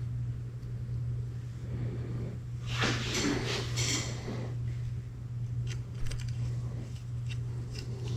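Metal tools and small parts clinking and rattling while a motorcycle brake lever is fitted on the handlebar, with a burst of handling about three seconds in and a few sharp clicks after. A steady low hum runs underneath.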